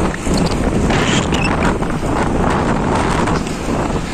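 Wind rushing over the microphone of a cyclist's camera at race speed: a loud, steady roar heaviest in the bass.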